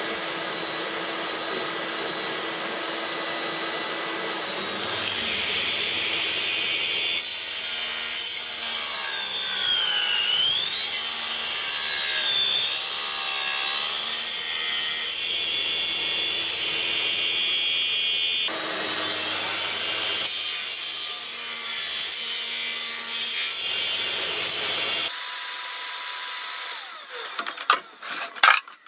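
Table saw running and cutting plywood blocks, a steady whine with a noisy cutting rasp. Twice, around ten and twelve seconds in, the whine dips in pitch and recovers as the blade takes the cut. Near the end the saw sound stops and a few sharp knocks follow.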